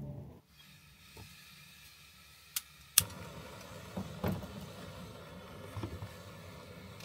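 A sharp click about three seconds in, then a low steady hiss with a few light clinks and knocks of a small cooking pot being handled on a canister camp stove.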